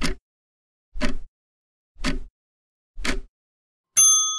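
Countdown-timer sound effect: sharp ticks about one a second, then a bell dings about four seconds in and rings on as it fades, signalling that time is up for answering.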